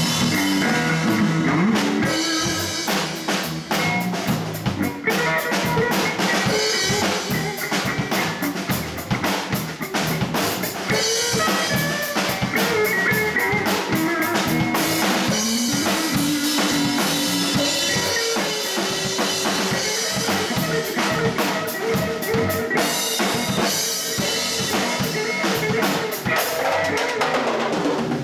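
Live blues band playing an instrumental passage: a Ludwig drum kit keeping a steady beat with bass drum and snare, under electric bass and electric guitar lines.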